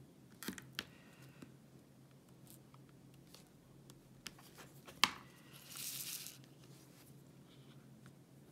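Small, faint clicks of resin diamond-painting drills being pressed into the canvas with a drill pen, with a sharper click about five seconds in and a brief scratchy rustle just after it.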